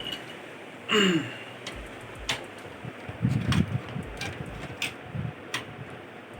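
Sharp clicks and light knocks from handling the plastic and metal parts of an AV receiver as its front panel is taken off. There are about half a dozen separate clicks, a short falling squeak about a second in, and a low rumble of handling near the middle.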